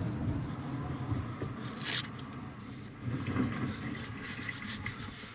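Work gloves being pulled onto the hands: fabric rustling and rubbing, with a short tearing rip about two seconds in.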